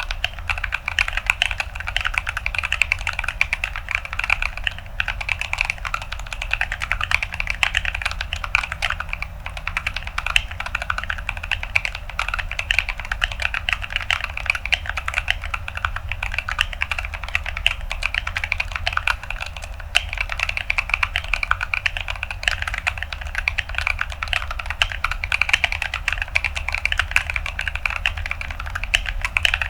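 Continuous fast typing on a mechanical keyboard with Gazzew Boba U4T tactile switches in an acrylic-plate Atlantis AK81ve with ASA-profile keycaps: a steady stream of rapid key clicks with a crunchy, tactile character.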